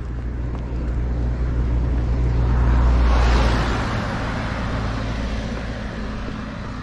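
A car passing close by on the road, its engine and tyre noise building to loudest about three seconds in and then fading away.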